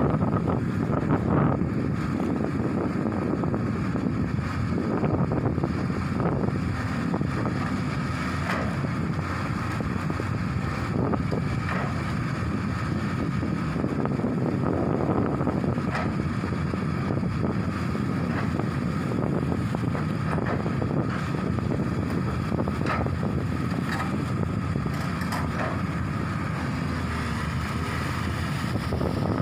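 Hyundai excavator's diesel engine running steadily, with a thin steady whine above the rumble and a few light knocks, and wind buffeting the microphone.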